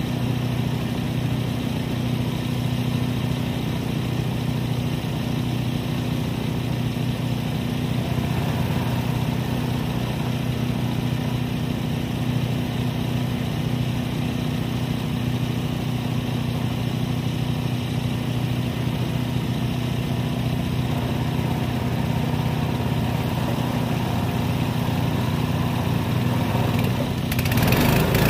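Timberly M100 portable sawmill's engine idling steadily. About a second before the end it grows louder, with added hiss.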